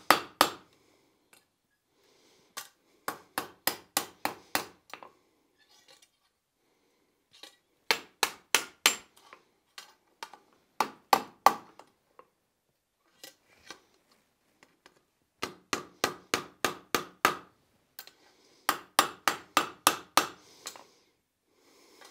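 Hand hammer striking hot steel over a hardy tool on an anvil, rolling a hinge eye around a pin: runs of sharp blows, about four a second, in short bursts with brief pauses between them.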